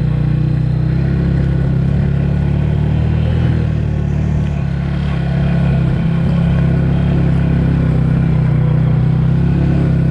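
Motorcycle engine running steadily under way, dipping briefly about halfway through before picking up again.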